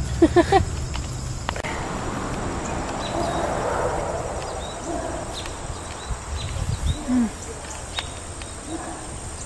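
Outdoor summer ambience of insects chirping, scattered short high chirps over a faint steady high drone, with a soft rustling haze. A few brief vocal sounds come right at the start and one short one about seven seconds in.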